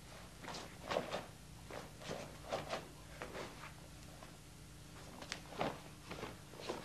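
Irregular footsteps and scuffs on a floor, a few sharper knocks among them, over a low steady hum.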